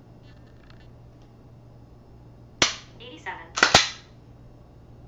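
Glock 19 pistol being dry-fired: one sharp click of the trigger breaking about two and a half seconds in, then about a second later two quick clacks of the slide being worked to reset the striker.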